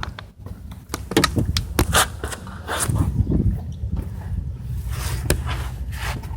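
Scattered clicks, knocks and scrapes of someone moving about and getting under a pickup truck, over a steady low rumble.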